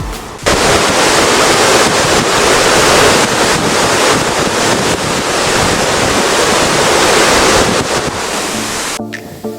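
Ocean waves breaking on the shore in a steady rush, with wind buffeting the microphone. Music plays briefly at the start and comes back in near the end.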